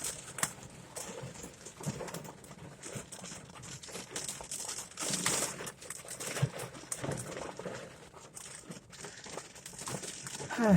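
Heavy rainstorm: an irregular, crackling patter of rain. Right at the end comes a brief falling vocal sound.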